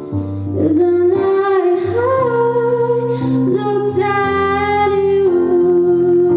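A woman singing long held notes over electric piano chords.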